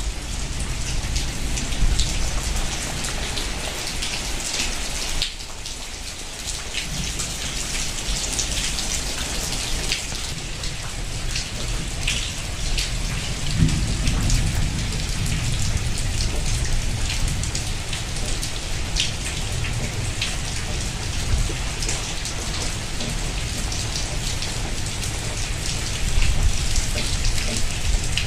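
Heavy rain pouring steadily onto a flooded courtyard and thatched roofs, a dense hiss of drops splashing into standing water. A low rumble comes in about halfway through.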